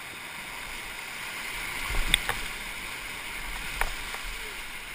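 Whitewater rapids rushing steadily around an inflatable raft, with sharp knocks about two seconds in and again near the end.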